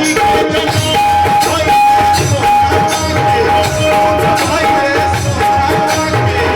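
Live folk band playing an instrumental interlude: a short high melodic figure repeats over a steady drum and tambourine beat, without singing.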